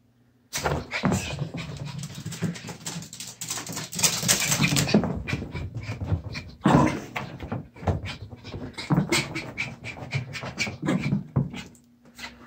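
Yorkshire terrier doing after-bath zoomies, racing around and rubbing itself dry: a dense run of scuffs, thumps and rustles with dog noises. It starts suddenly about half a second in and eases off near the end.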